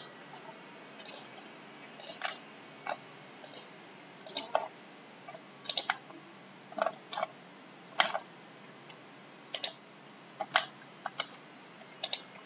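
Computer mouse and keyboard clicks: short, sharp, irregular clicks, roughly one or two a second, some in quick pairs, over a faint background hiss.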